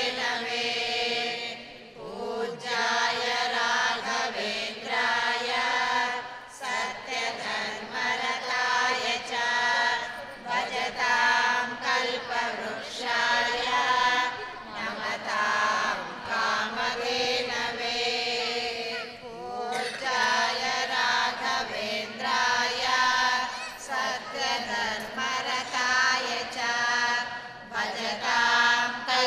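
A group of voices chanting a Sanskrit prayer to Sri Raghavendra in unison. The chant runs in long melodic phrases a few seconds each, with brief breaks between them.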